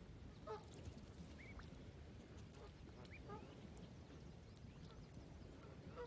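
Mallard ducks calling faintly: a handful of short, soft calls spaced through, over a low steady background rumble.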